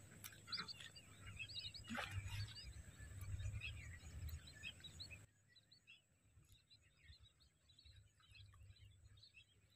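Faint outdoor ambience of many small birds chirping, with a low rumble and a couple of sharp clicks in the first half; the rumble cuts off abruptly a little past halfway.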